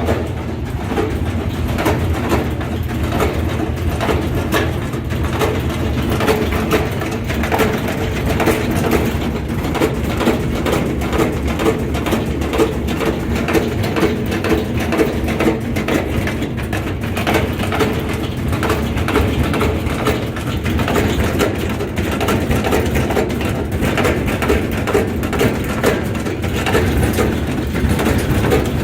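Whirlpool washing machine running out of balance, its drum knocking rhythmically against the cabinet over a steady mechanical rumble.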